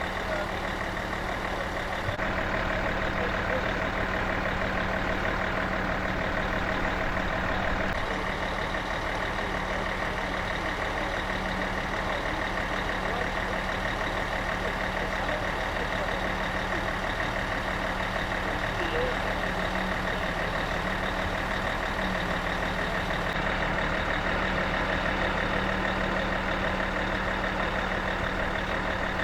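A boat engine running steadily at an even speed, with a constant low hum.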